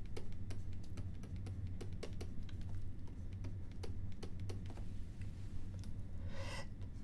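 Stylus pen tapping and clicking on a tablet while handwriting: a run of light, irregular clicks over a steady low electrical hum, with a short hiss near the end.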